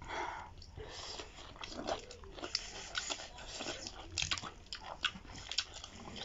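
Mouth sounds of eating duck meat off the bone: chewing, lip smacking and biting, an irregular run of short wet clicks and smacks from several eaters.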